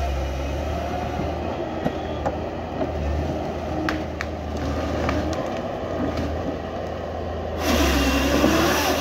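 A forestry harvester's diesel engine and hydraulics run steadily as the LogMax 6000B head grips and moves a wind-thrown tree, with sharp cracks of wood now and then. About seven and a half seconds in, the head's saw (JPS R5500 sprocket, 3/4-inch chain, Iggesund bar) starts cutting through the stem, a louder hissing noise.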